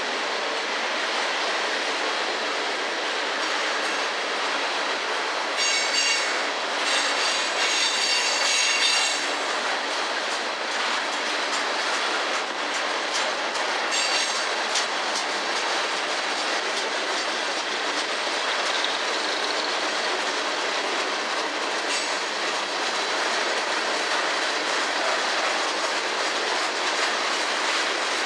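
Loaded coal gondola cars rolling past on steel wheels, a steady rumble with occasional clacks from the rail joints. A high-pitched wheel squeal rises about six seconds in and lasts a few seconds, and comes back briefly near fourteen seconds.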